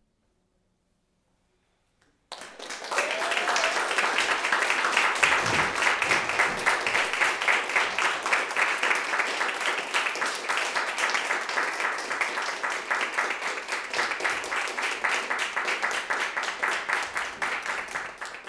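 About two seconds of near silence, then an audience breaks into applause, which goes on steadily.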